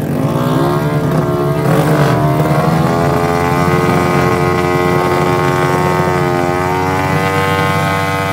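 Tuned 177cc Yamaha MX King single-cylinder four-stroke race engine revved up over the first second or two, then held steady at high revs on the drag-strip start line, ready for launch.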